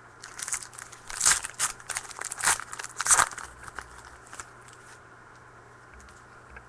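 A trading-card pack's foil wrapper being torn open and crinkled by hand. It makes a run of irregular crinkling and tearing sounds, loudest in three bursts, and stops about four and a half seconds in.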